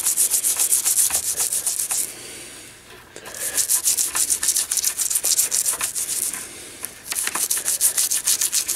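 A toothbrush scrubbing hand cleaner into a black control knob: rapid back-and-forth bristle strokes with a bright, scratchy hiss. The scrubbing pauses briefly twice, about two seconds in and again about six and a half seconds in.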